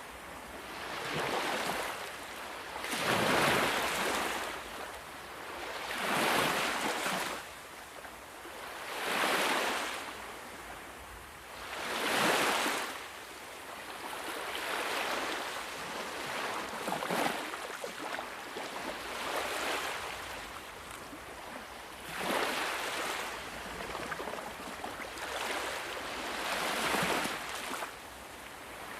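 Ocean waves breaking on a shore: the surf swells and falls away in repeated surges, roughly every three seconds.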